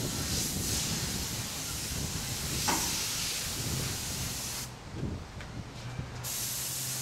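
Airbrush spraying paint with a steady airy hiss. It cuts off about two-thirds of the way through, then starts again shortly before the end.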